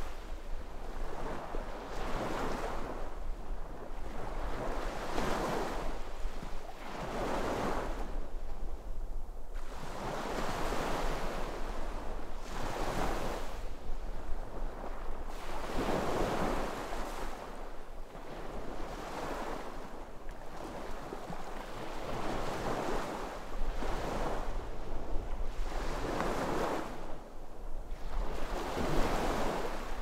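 Sea waves breaking and washing up the shore, one surge of surf swelling and fading after another every few seconds.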